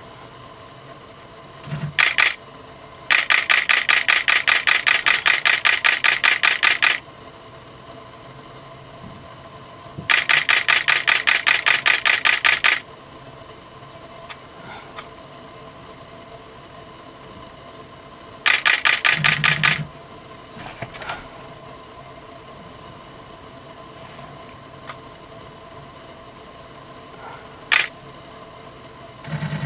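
Camera shutter firing in rapid bursts of about five frames a second: a short burst, a long one lasting about four seconds, another of about two and a half seconds, and a short one, with a few single clicks between. Faint steady high tones run underneath.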